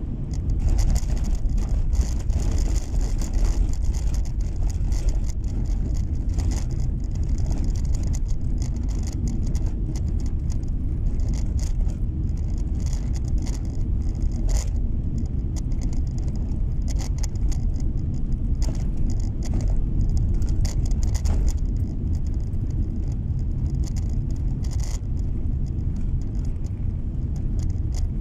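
Road noise inside a car cabin while driving on packed snow: a steady low rumble of tyres and engine, with scattered crackles and ticks and a faint hiss that comes and goes.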